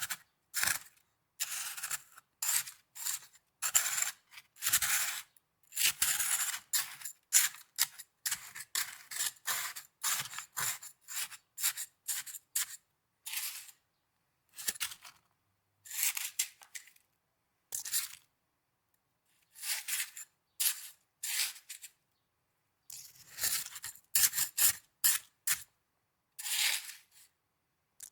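Snow being crunched and scraped close to the microphone: short, crisp, irregular crunches, some quick and some drawn out over about a second, with dead-silent gaps between them.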